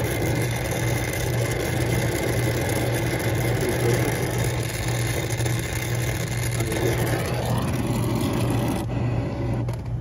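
Brazing torch flame hissing steadily while it heats the copper joint on a refrigeration filter drier; the hiss cuts off about nine seconds in. A steady low mechanical hum runs underneath throughout.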